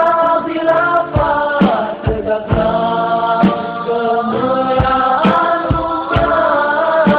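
Islamic nasheed sung by a choir in long held, sliding notes, with percussive hits marking the beat.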